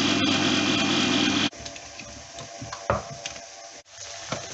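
Sunbeam electric can opener's motor running steadily as it cuts round a tin lid, stopping suddenly about a second and a half in. A few light clicks and a knock follow.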